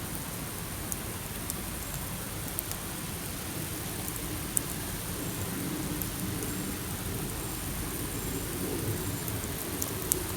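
Campfire crackling: a steady hiss with scattered sharp pops, the loudest one about four and a half seconds in, over a low rumble.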